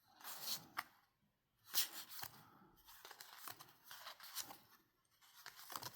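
Trading cards being handled and slid past one another while flipping through a pack, a few short, faint, irregular swishes.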